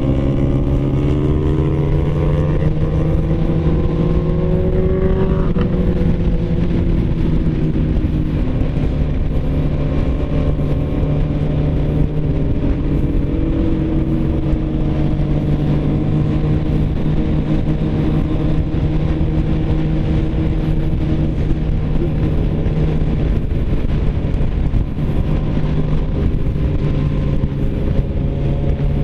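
Suzuki sportbike's inline-four engine heard from the rider's seat at road speed, over rushing wind. It rises in pitch through the first few seconds as it accelerates, then holds a steady drone while cruising.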